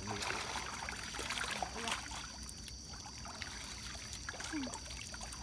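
Shallow river water splashing and trickling as a fine-mesh net on bamboo poles is swept and lifted through it by people wading.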